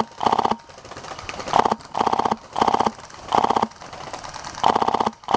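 Polarstar Fusion Engine HPA airsoft rifle (MC51/G3) firing short full-auto bursts of rapid clicks, about six bursts each under half a second long.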